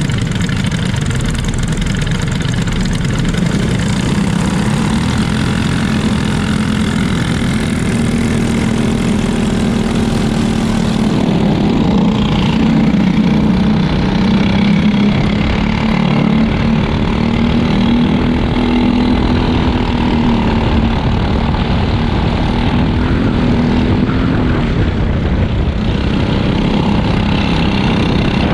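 Briggs & Stratton LO206 four-stroke single-cylinder kart engines running at low, fairly even revs, the onboard kart's engine loudest. The pitch shifts only slightly.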